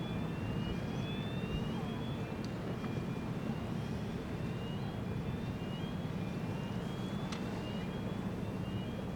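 Steady low engine rumble, with a faint high chirp that rises in pitch and repeats about once a second over it.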